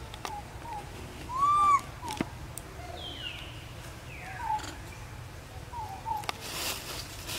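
Infant macaque calling: one loud, arched, tonal coo about one and a half seconds in, with short, quieter peeps on and off through the rest.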